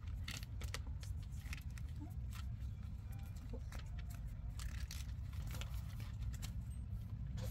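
Steady low wind rumble on the microphone, with scattered light clicks and rustles.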